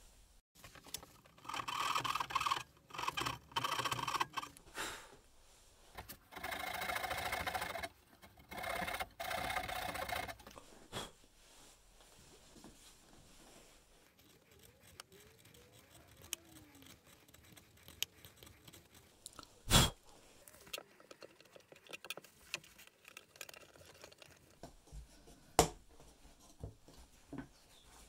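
Wood being cut by hand to make lap joints in thin walnut strips: several scraping strokes about a second long in the first ten seconds. Then quieter handling of the strips, with two sharp knocks later on.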